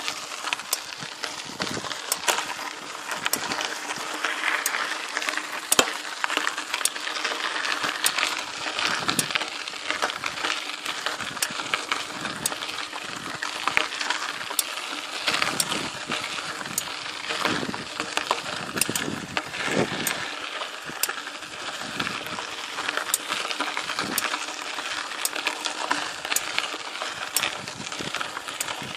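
Mountain bike drivetrain being pedalled, chain running with a steady hiss, and a sharp tick about once every 1.2 seconds, once per turn of the Truvativ crank, felt under the right pedal. The rider suspects a worn crank (bottom bracket) bearing or pedal bearing.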